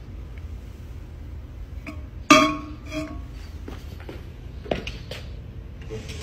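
A small ring-shaped object dropping onto a concrete floor: one sharp clink that rings briefly about two seconds in, then a second clink and a few lighter taps as it bounces. A steady low hum runs underneath.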